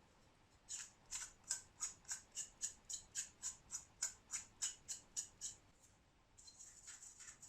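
Heat gun's cooling-fan impeller turned by hand, catching and scraping on the housing in a regular run of about three faint, sharp ticks a second that stop near the end. The grating comes from an impeller that has settled too low on its shaft.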